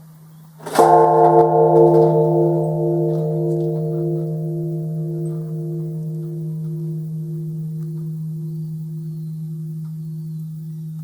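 Japanese temple bell (bonshō) struck once by an automatic bell-striking machine about a second in, then a long ringing with a deep steady hum and slowly pulsing higher tones, fading gradually.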